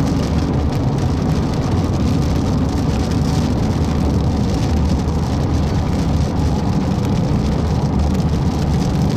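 Steady road and engine noise inside a moving car, with rain striking the windshield.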